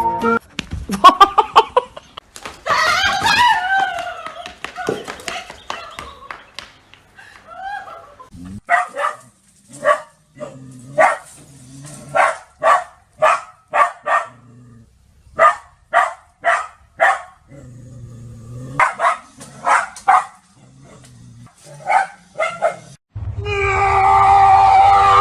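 A dog barking repeatedly, in runs of several quick barks with short pauses between the runs.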